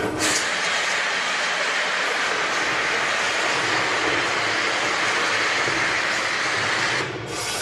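Steady hiss of heavy rain from a storm sound effect played over a PA system, cutting off suddenly about seven seconds in.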